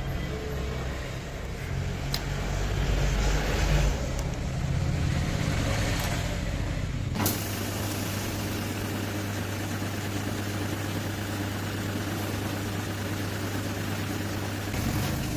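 Royal Enfield Bullet 350 single-cylinder engine running: an uneven low hum at first, then, after a sharp click about halfway through, a steady even hum.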